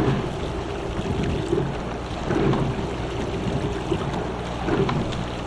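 Single rowing scull under way at about 25 strokes a minute: water running along the hull, with a swell of oar and sliding-seat noise at each stroke about every two and a half seconds.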